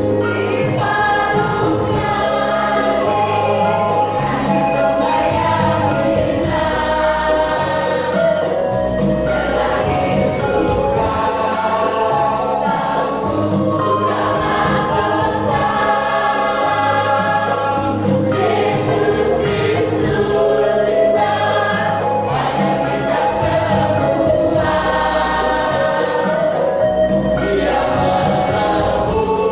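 Church choir singing in parts with instrumental accompaniment, its bass notes held and changing every second or two.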